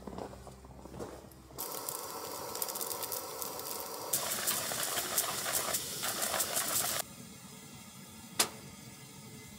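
Isobutane canister stove (MSR Windburner) burning with a steady hiss as it heats coffee water, growing louder about four seconds in and cutting off suddenly about seven seconds in. A single sharp click follows about a second later.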